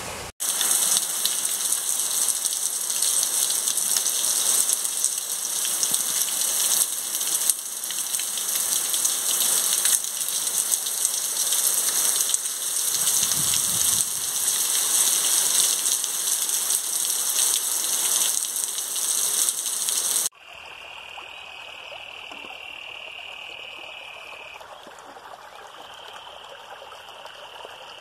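Heavy rain falling, a loud steady hiss. About 20 seconds in it cuts to a quieter scene of running water with a steady high-pitched trill over it.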